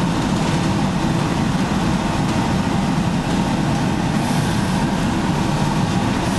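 Steady low mechanical rumble of kitchen background noise, even and unbroken throughout.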